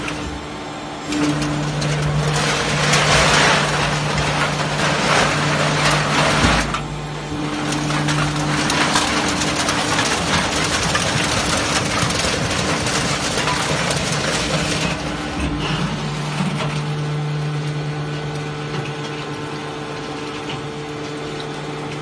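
Enerpat fully automatic aluminium can baler pressing used beverage cans: a steady motor hum under the loud noise of cans being crushed. The crushing is loudest over the first several seconds and eases off after about fifteen seconds, leaving mostly the hum.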